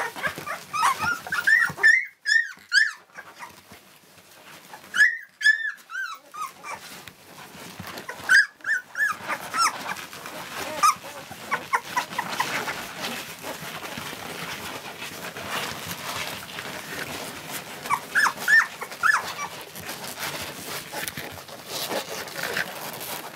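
Two-week-old barbet puppies whimpering and squealing in several short bouts of high, arching squeaks, most of them in the first nine seconds and one more bout near the end. Between the bouts come many small clicks and rustling as the puppies crawl over the bedding and nurse.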